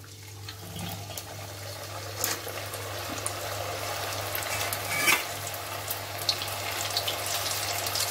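Peeled, soaked field beans (mochai) deep-frying in hot oil in a kadai: a steady sizzle that builds as the oil foams up around the freshly added beans, with a couple of light knocks against the pan. The heavy foaming and sizzling come from moisture still on the beans boiling off.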